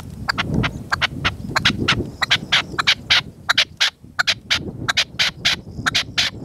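Red-legged partridge calling: a fast run of sharp, repeated notes, about five a second, a male answering the caged decoy bird. Wind rumbles on the microphone underneath.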